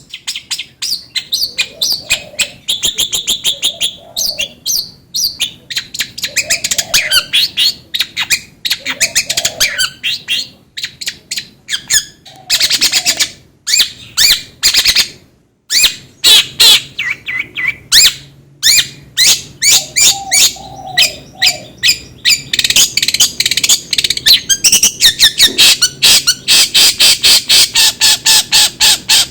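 Long-tailed shrike singing a fast, varied chattering song of rapid sharp notes, trills and harsh squawks, with a brief pause about fifteen seconds in.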